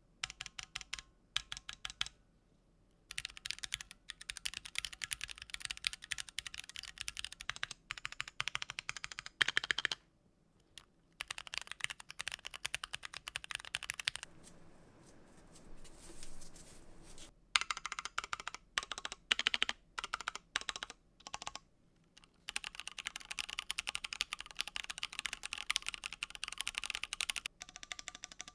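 Keychron Q1 aluminium gasket-mount keyboard with Gateron Phantom Brown switches being typed on in fast bursts with brief pauses. Masking tape on the back of the PCB and cotton in the bottom of the case damp it, so the hollow aluminium ring is hardly heard.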